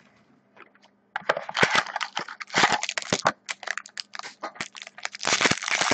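Clear plastic shrink wrap crinkling and crackling as it is torn off a sealed trading-card box. The crackles start about a second in and come thickest near the end.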